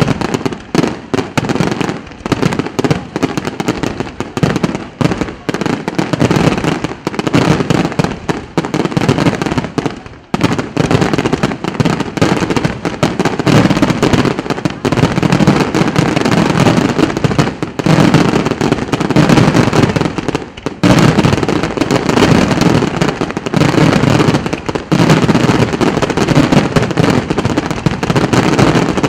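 Aerial fireworks display: a dense, continuous barrage of shell bursts, booming and crackling, with brief lulls about ten and twenty-one seconds in. It grows louder and denser through the second half.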